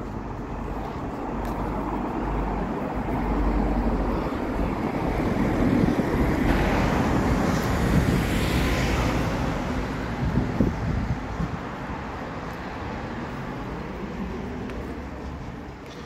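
A road vehicle driving past: its sound builds over several seconds, peaks about eight seconds in, then fades.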